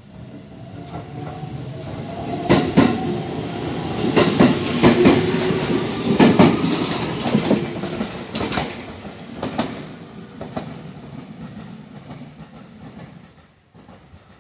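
Aichi Loop Railway electric train pulling out and passing close by. A motor whine rises in pitch as it gathers speed, and its wheels clack over the rail joints, mostly in quick pairs. The sound then fades away as the train leaves.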